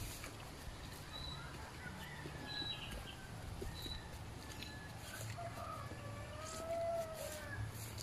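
Rural farm ambience: small birds giving short high chirps every second or so, and a distant rooster crowing in a long arching call about six to seven seconds in. A faint low rumble runs underneath.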